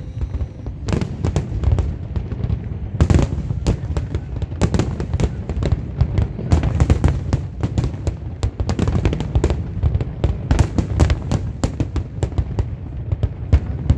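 Fireworks barrage: many aerial shells bursting in quick, overlapping succession, a continuous run of deep booms mixed with sharp cracks and reports.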